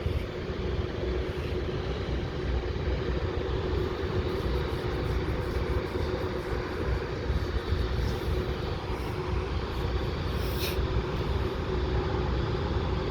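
Heavy diesel construction machinery running steadily: a constant low engine rumble with a steady hum over it, and a brief sharp click or clank near the end.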